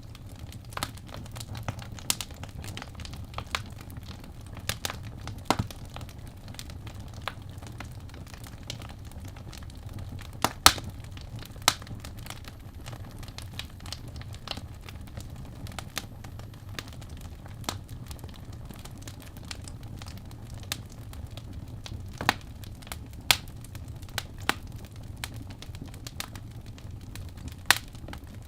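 Wood fire burning in a fireplace: irregular sharp crackles and pops over a steady low rumble of the flames, with a few louder pops, one about ten seconds in.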